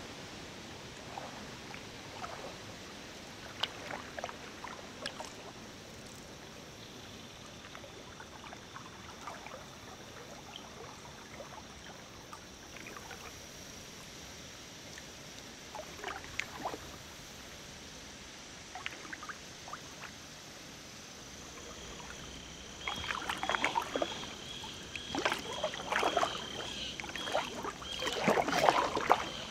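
Kayak paddle dipping and dripping on a slow river: scattered small splashes and drips at first, then a run of louder paddle-stroke splashes over the last six or seven seconds.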